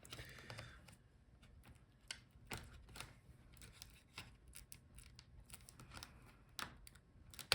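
Faint, scattered light clicks and taps of small laptop parts being handled as the I/O board is lifted out and set aside, with one sharper click near the end.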